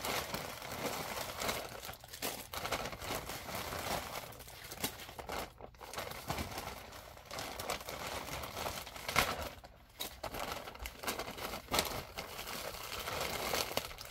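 Plastic mailer bag and plastic wrapping crinkling and rustling as they are handled and rummaged through, with many sharp crackles throughout.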